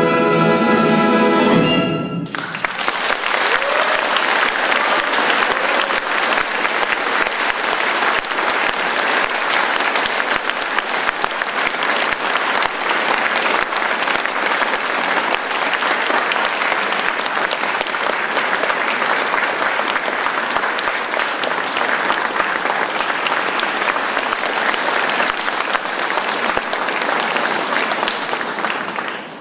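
Solo violin and symphony orchestra ending on a held final chord that cuts off about two seconds in, followed by a concert hall audience applauding steadily, fading out at the end.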